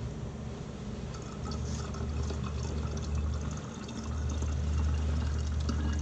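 Liquid being poured into a container while ethanol and distilled water are measured out as a substitute magnetic-compass fluid, over a steady low hum.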